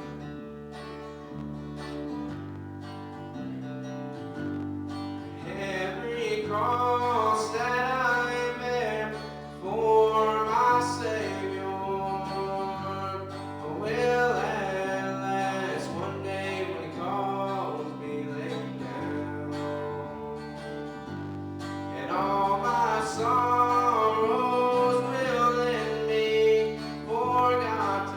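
Gospel music: a voice singing over guitar with a low bass line, the singing coming in about five seconds in.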